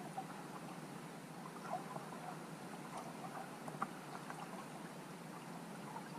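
Underwater sound picked up by a submerged camera on a lake bed: a steady hiss with faint scattered clicks and ticks.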